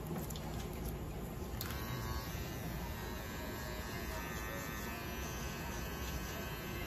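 Small handheld electric device buzzing steadily as it is held against a cat's head, starting about one and a half seconds in.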